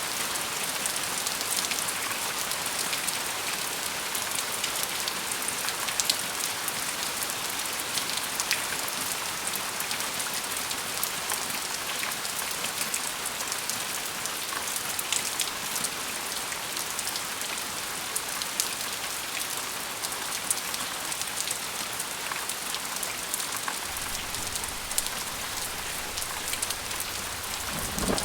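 Steady rain falling and pattering on a hard surface, with many individual drops ticking, at an even level.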